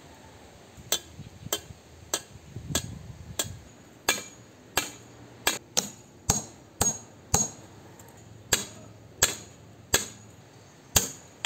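Hammer striking the metal brackets that hold chain-link mesh to a concrete post: a string of sharp metallic taps about two a second, lighter at first and louder from about four seconds in.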